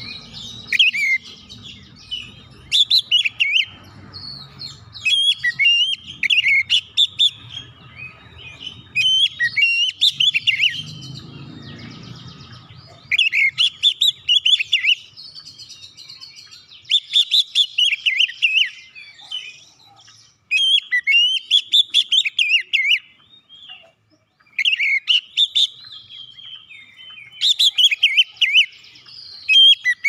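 Oriental magpie-robin singing: rapid, varied phrases of loud whistled and chattering notes, broken by short pauses, with two longer silences about two-thirds of the way through.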